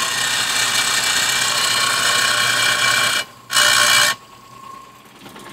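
Cincinnati 1808G power shear running: a loud, steady mechanical noise with a high whine through it. About three seconds in it cuts off suddenly and comes back for about half a second, then drops to a low hum.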